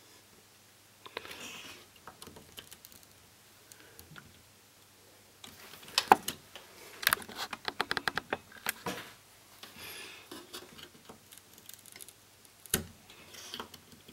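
Handling noise: light clicks, taps and rustles of hands working with small equipment. A dense run of clicks comes in the middle, and a single sharp click comes near the end.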